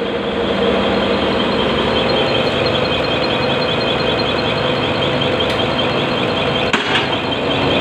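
Diesel injector test bench running a repaired Bosch common-rail injector during its delivery and back-leakage test: a steady machine hum with the injector's rapid, even ticking as it fires. A single sharp click comes near the end.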